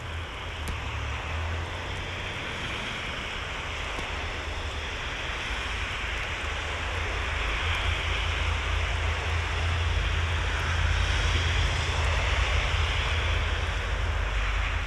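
Blizzard wind buffeting the microphone: a gusting low rumble over a steady hiss, growing louder over the first half.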